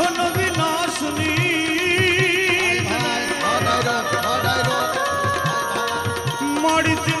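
Instrumental interlude of Gujarati devotional folk music: hand drums keep a steady beat under a wavering melody line.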